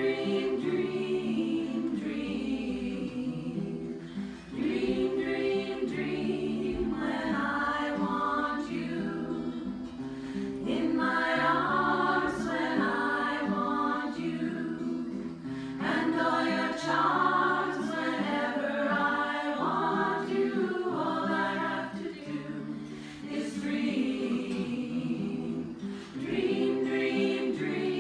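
A vocal ensemble singing in harmony, with low voices holding long notes under higher voices with vibrato, in phrases separated by brief dips.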